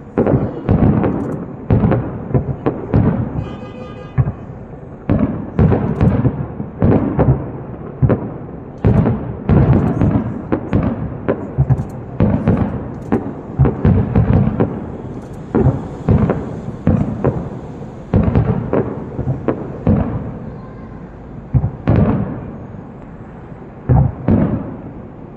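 Fireworks display: aerial shells bursting in quick succession, deep booms with echoing tails, at times several a second.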